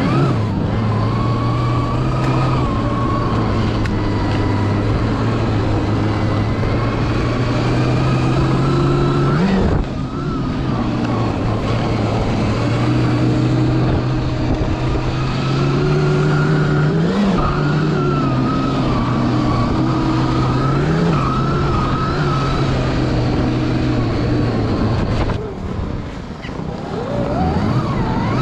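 Electric snowbike with a track kit under way: the motor and drivetrain whine, its pitch drifting up and down with the throttle, over a steady rushing noise. The whine eases off briefly about ten seconds in and again near the end.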